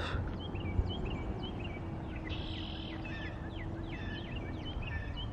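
Songbirds chirping, many short repeated calls, over a low outdoor background rumble with a faint steady hum underneath.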